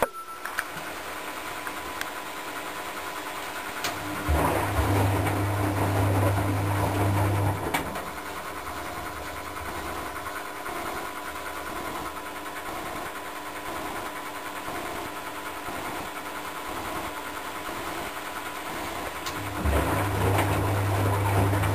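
Westa-85 front-loading washing machine in its BIO wash: the drum motor hums and the laundry swishes as the drum turns for about three seconds, starting about four seconds in, then rests for about twelve seconds before turning again near the end.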